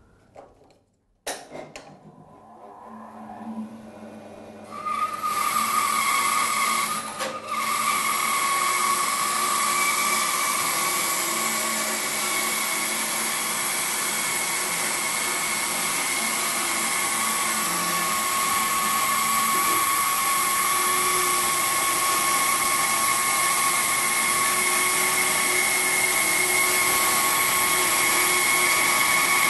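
Record Power BS400 bandsaw with its 2 hp motor switched on with a click about a second in and running up to speed. From about five seconds in, the blade cuts steadily through a thick block of timber, with a steady high whine over the cutting noise.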